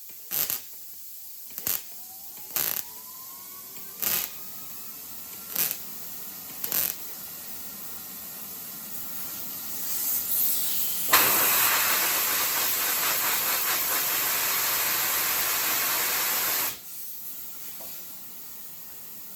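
Six short bursts in the first seven seconds, then compressed air from a blow gun hissing steadily for about six seconds, cooling the freshly welded spot on a car hood to keep the thin panel from warping.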